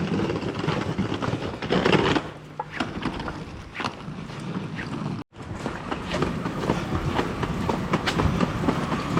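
Outdoor city street noise with scattered small clicks and knocks, broken by a sudden dropout about five seconds in where the recording cuts.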